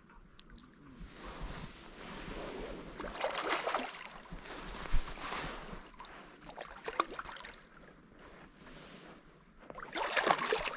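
Water splashing and sloshing in irregular bursts, with a few sharp slaps, loudest near the end: a hooked fish struggling at the surface while it is played on a fishing pole.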